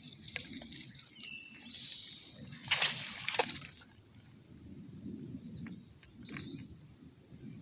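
Creek water sloshing, with a short splash about three seconds in and a thin whistling bird call near the start.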